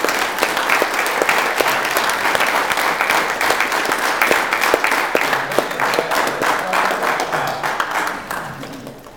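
A small group of people clapping and applauding, the clapping dying away near the end.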